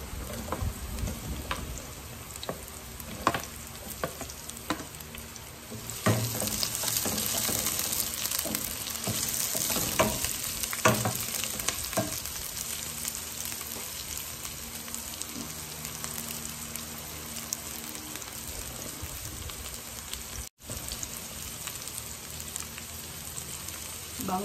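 Sliced onions and chopped garlic sizzling in hot cooking oil in a stainless steel pot, stirred with a wooden spoon that knocks against the pot now and then. The sizzle gets louder about six seconds in.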